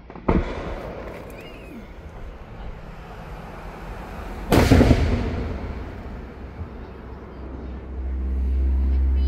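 Aerial firework shells bursting: a sharp bang just after the start, then a louder boom about four and a half seconds in that dies away slowly. A low rumble builds near the end.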